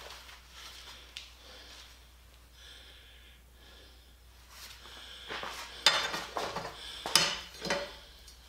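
Thin steel wheelbarrow rim band clinking and scraping against metal tools as it is handled, with several sharp metallic clatters in the second half.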